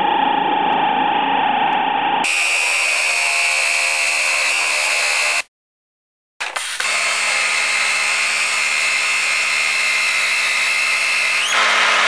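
Pneumatic air nibbler cutting a sheet-metal blank: a loud, steady whining buzz, broken by about a second of silence near the middle.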